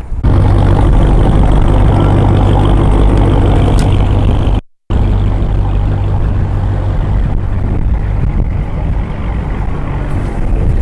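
Vehicle engine idling close by, a loud, steady low hum with traffic noise over it. It cuts out for a moment about five seconds in.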